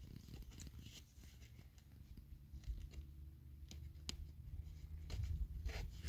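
Faint handling sounds: a few scattered light clicks and taps over a low steady hum.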